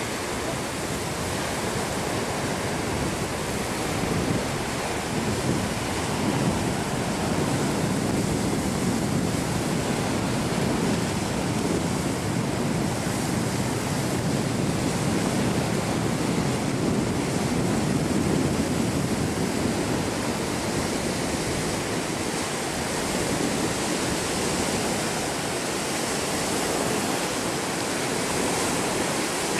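Sea surf breaking and washing onto a rocky shore: a steady rushing noise that swells a little and eases off again.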